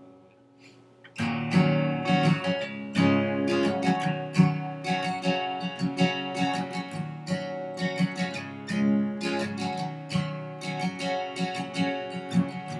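Acoustic guitar strummed in a steady rhythm, the instrumental intro of a song before the vocals come in, starting about a second in after a short quiet.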